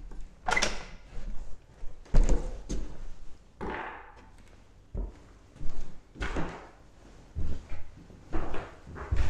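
Old wooden interior door: the knob is turned and the door pushed open with a click and knock, followed by a series of separate thumps and knocks.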